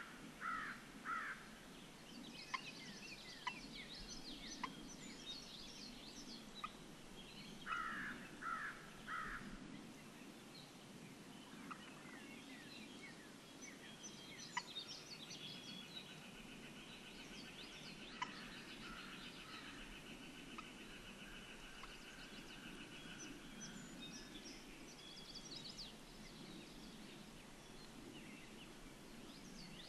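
Outdoor birdsong: a short run of loud, harsh calls at the start and another of three calls about eight seconds in, with scattered songbird chirps throughout and a long, fast, steady trill for about eight seconds in the middle.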